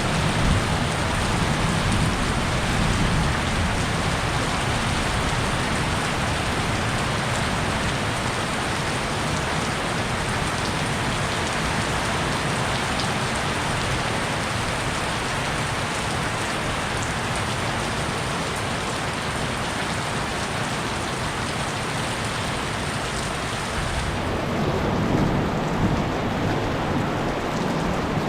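Heavy rain pouring steadily in a thunderstorm, with low thunder rumbling in the first few seconds and building again near the end.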